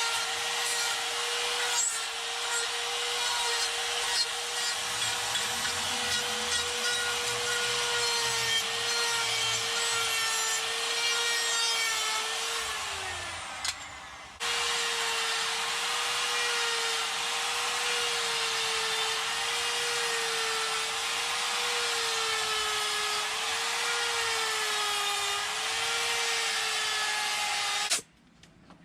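Electric die grinder with a burr spinning at a steady high whine as it grinds wood, its pitch wavering slightly under load. About halfway it is let off and winds down, then is switched straight back on, and it cuts off near the end.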